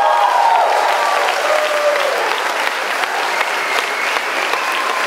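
Large audience applauding, with cheers rising over the clapping in the first couple of seconds.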